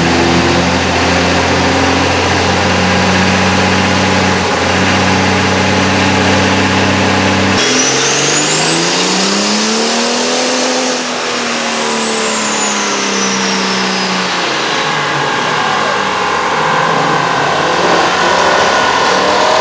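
Car engine running steadily, then, after an abrupt change, an engine revving up and easing back down over several seconds, with a high whine rising and falling alongside it.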